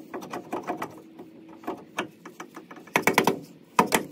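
Dead-blow hammer knocking a Dana 44 differential carrier into the axle housing. Light metal clinks at first, a cluster of hard knocks about three seconds in, then a fast run of even taps near the end.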